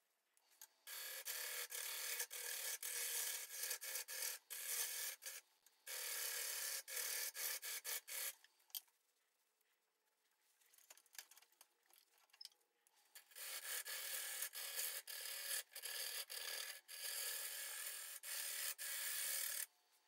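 Turning tool cutting a spinning green spalted sugar maple bowl blank on a wood lathe: a rough, hissing shaving sound in runs of several seconds, broken by many brief gaps. It stops for a few seconds around the middle while the lathe is at rest, then the cutting resumes.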